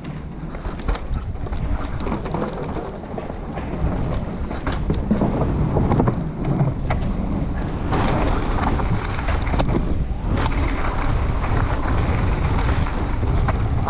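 Mountain bike rolling downhill at speed: air rushing over the action camera's microphone, tyres running over dirt and a wooden boardwalk, with scattered clicks and rattles from the bike. It grows louder as the bike speeds up.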